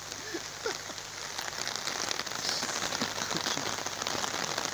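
Heavy rain falling on an open umbrella held just overhead: a dense, steady patter of many drops.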